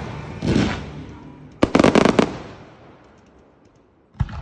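Fireworks exploding: a burst about half a second in, then a sharp bang followed by a quick rattle of crackling reports around two seconds in, dying away, and another bang near the end.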